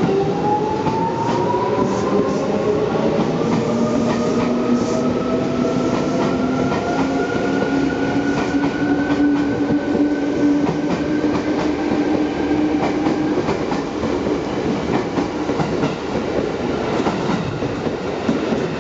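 Seibu New 2000 series electric commuter train pulling away, its traction motors whining upward in pitch as it accelerates and then holding steady, with wheels clacking over the rail joints as the cars pass close by.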